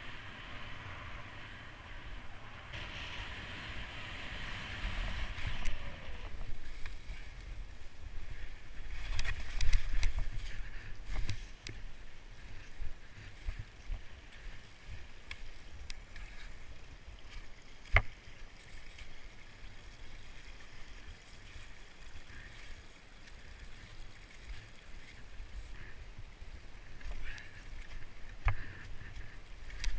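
Touring skis hissing over snow on a downhill glide, with low wind rumble on the microphone and a few sharp knocks from skis and poles. Then faint running water from a partly snow-covered mountain stream, with another sharp knock about eighteen seconds in.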